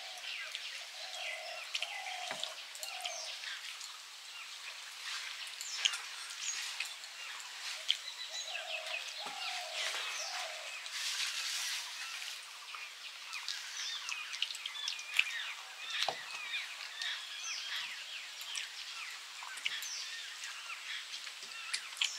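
Small birds chirping and calling, many short chirps overlapping throughout, with a few lower warbling calls and an occasional soft click.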